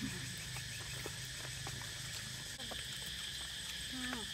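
Steady chirring of night insects over a low hum, with scattered small clicks of chopsticks and eating. A person makes a short murmur near the end.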